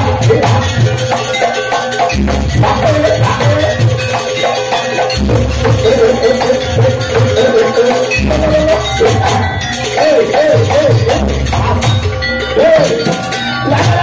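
Live Javanese jaranan ensemble music: a wavering, trilling melody line over drums and a steady rattling percussion.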